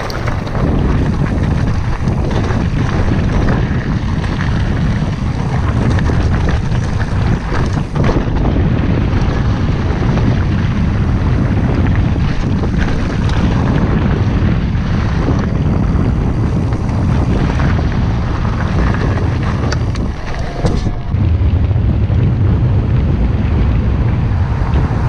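Wind buffeting the microphone of a mountain bike ride down a rocky gravel track, with steady tyre rumble and scattered rattling knocks as the bike rolls over stones. About four seconds before the end the sound changes as the bike comes onto smooth asphalt.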